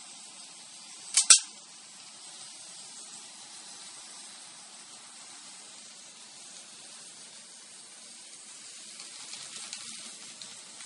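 Two sharp clicks in quick succession about a second in, over a steady hiss, with faint crackling near the end.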